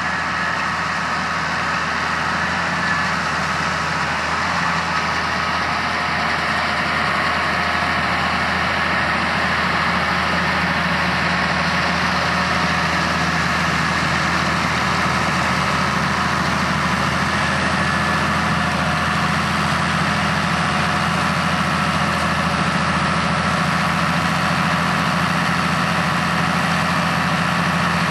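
Heavy farm machinery diesel engine running steadily at constant speed, a low hum with a broad mechanical rush above it.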